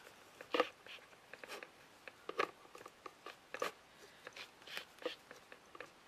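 Light, irregular taps and scuffs of an ink pad being dabbed and rubbed along the edges of small painted craft pieces.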